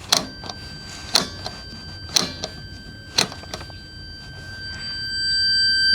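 Several sharp clicks as the radio's pushbutton band switches are pressed. A multimeter's continuity beeper gives a steady high tone, faint at first and loud from about five seconds in, which reads as a short (zero ohms) across the electrolytic capacitor section.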